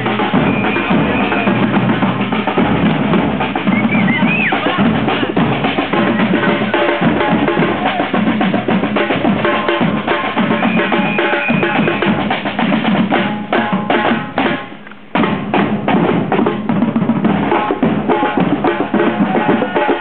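A group of drummers playing strapped-on drums together in a fast, loud, busy rhythm. About fourteen seconds in, the drumming thins out and dips briefly, then comes back in all together with a strong hit.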